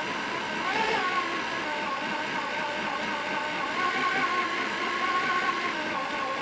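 8-amp corded drill driving a Wondermill Junior grain mill with stone burrs, grinding peanuts into peanut butter: a steady motor whine, with a brief dip and rise in pitch about a second in.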